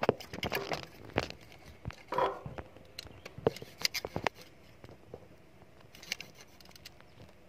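Irregular light clicks, taps and short scrapes of small metal hand tools and a feeler gauge against a motorcycle engine's rocker arm adjuster during a valve clearance adjustment, busier in the first half and sparser later.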